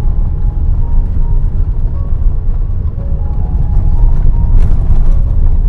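A Tata Harrier SUV driving over a rough, unpaved mountain road: a loud, steady low rumble. Faint background music plays under it.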